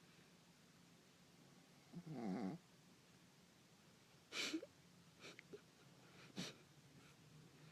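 Sleeping Shih Tzu snoring: one pitched, wavering snore about two seconds in, then a short snort about four and a half seconds in, followed by a few small snuffles and a sharp snort near six and a half seconds.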